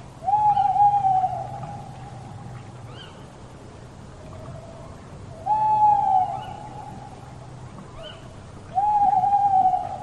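Owl hooting: three long, clear hoots a few seconds apart, each about a second long, opening with a short rise in pitch and then easing slowly down.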